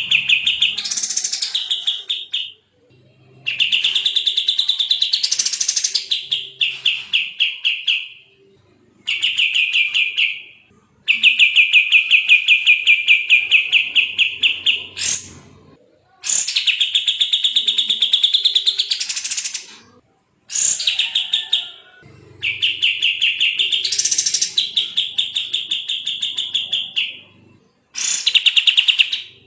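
Kapas tembak songbird singing in fast, tight trills: bursts of rapid ticking notes about two seconds long, some sweeping up higher, repeated with short pauses between them.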